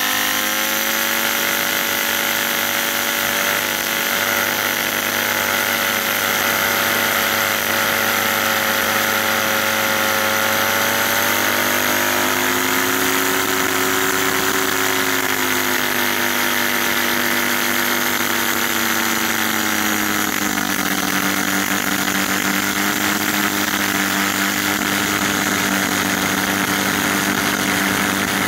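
Over-volted blender universal motor running free at high speed, a steady whine over a hiss, its brushes sparking at the commutator. The pitch wavers and drops a little about twenty seconds in.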